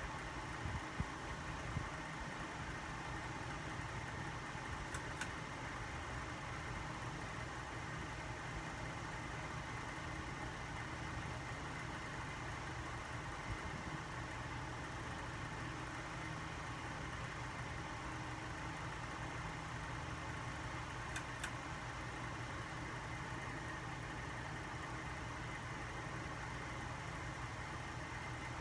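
Vintage ceiling fan with a salvaged motor running steadily: an even motor hum with a few faint clicks.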